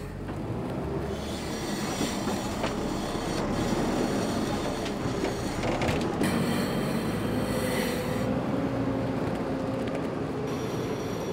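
Farm machinery at work loading muck: engines running, with a grinding, squealing mechanical noise and a faint steady whine as a loader grab drops manure into a spreader. The noise changes abruptly several times.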